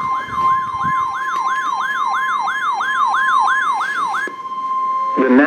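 NOAA Weather Radio warning alarm tone: a single steady high tone, sounding the alert for a severe thunderstorm warning. For the first four seconds a siren-like sweep falls in pitch over and over on top of it, about three times a second. Then the steady tone holds alone and cuts off just before five seconds in.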